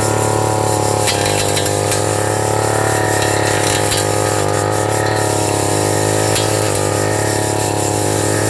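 Brush cutter engine running steadily at high speed, its pitch wavering slightly.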